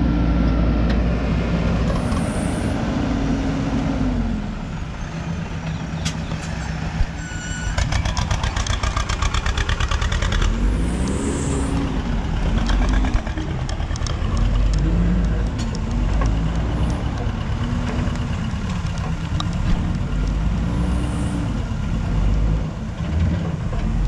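JCB backhoe loader's diesel engine running under load, its pitch rising and falling again and again as the backhoe arm and bucket are worked. A fast rattle sounds for a few seconds around eight to ten seconds in.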